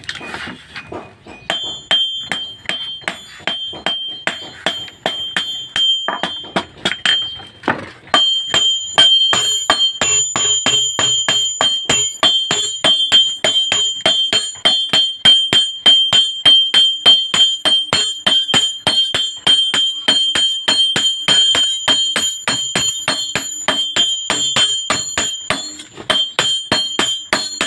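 Hammer blows on a steel machete blade over an anvil, each blow with a bright metallic ring. Slower, uneven strikes for about the first eight seconds, then a rapid, even run of blows.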